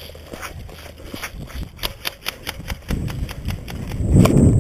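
Running footsteps of a person sprinting over grass and sandy ground, quick regular footfalls about four a second. A low rumble builds in the second half and is loudest near the end.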